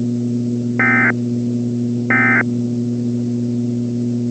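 Two short electronic beeps about 1.3 s apart over a steady low hum, part of the broadcast's separator between one weather bulletin and the next.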